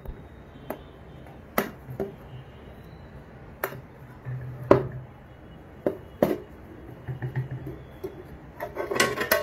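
Stainless steel plate lid clinking and scraping against the rim of a metal kadai as it is worked loose. A scattered series of sharp metallic clicks and knocks is followed by a denser clatter near the end as the plate comes free.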